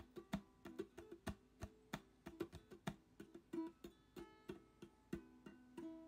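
Light background music of plucked strings, guitar-like, with picked melody notes over a steady beat of crisp clicks.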